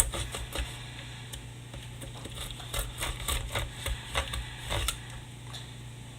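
Irregular clicks, taps and scrapes of a blade cutting and prying into a cardboard firework mortar tube, with the tube being handled.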